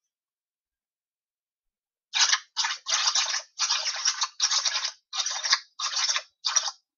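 Games Workshop spray gun with its nozzle held in water, fired in about eight short hissing bursts starting about two seconds in, flushing black primer out of the gun.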